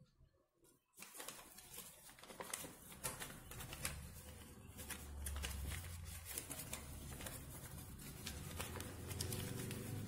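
A sheet of paper being creased and folded by hand, with crisp crackling and rustling that begins about a second in. A low hum runs underneath and grows stronger in the second half.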